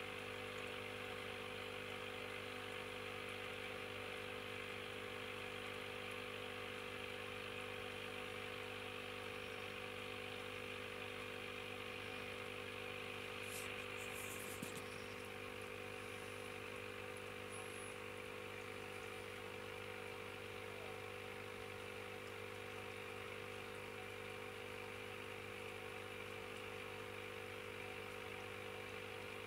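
Steady electric hum of running aquarium equipment, a low buzz with a hiss above it. A brief faint rattle comes about halfway through.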